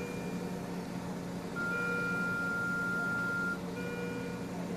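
C-arm fluoroscope's X-ray exposure tone as an image is taken: a steady high beep held for about two seconds, then a shorter, fainter beep near the end, over a low steady machine hum.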